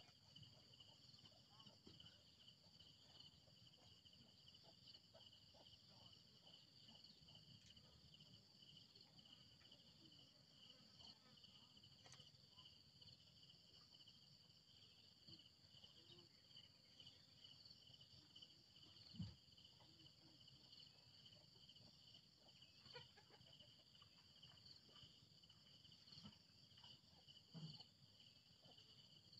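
Faint, steady chirring of insects in two high, pulsing pitches, with a few soft knocks in the second half.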